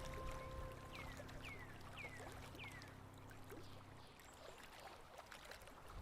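Faint waterfall, a steady rush of falling water, under the last held notes of soft music fading away. Four short downward whistles sound about a second in, each half a second apart.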